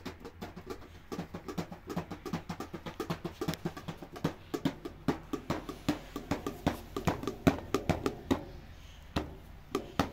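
Fast, rhythmic drum-led music, a quick run of sharp percussion strokes over a low pitched line, briefly thinning near the end.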